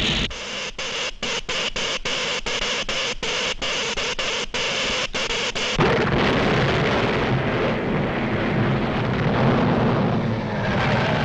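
Animated-cartoon sound effects for an earthquake machine starting up. First comes a loud, stuttering hiss that cuts out in quick, short gaps. About six seconds in, a sudden heavy rumble takes over: the machine-made earthquake.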